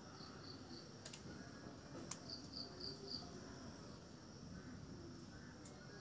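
Faint insect chorus: a steady high-pitched drone with two short runs of quick chirps, three near the start and four about halfway through. Two sharp clicks sound about one and two seconds in.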